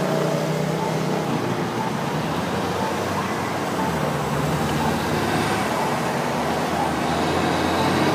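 Steady road traffic noise: vehicle engines and tyres on a city street.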